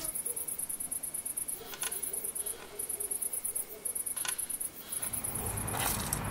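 Crickets trilling, a rapid high-pitched trill in runs of about a second with short breaks. A single soft click about four seconds in, and a low hum comes in near the end.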